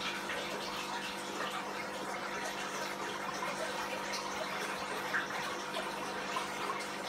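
Aquarium water circulating: a steady trickling, bubbling rush from the tank's filtration, with a steady hum beneath.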